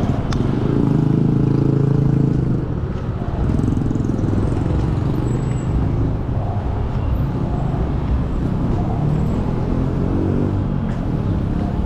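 Street traffic: a motor vehicle's engine passes close, loudest from about half a second to two and a half seconds in, over the steady hum of road traffic.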